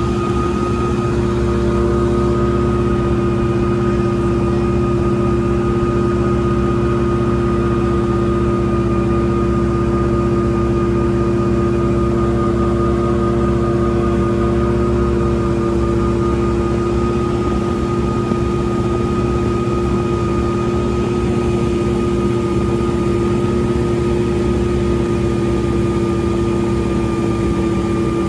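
CGS Hawk ultralight aircraft's engine and propeller running at a steady, unchanging pitch, a constant drone.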